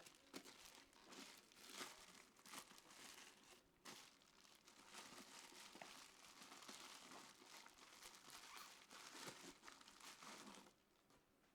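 Faint crinkling and rustling of plastic being handled, with scattered small clicks, stopping shortly before the end.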